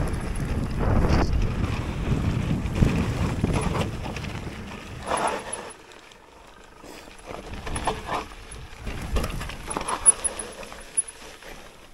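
Mountain bike riding downhill: wind buffeting the microphone over the rattle of the bike. About halfway through it turns quieter, leaving scattered clicks and knocks from the bike.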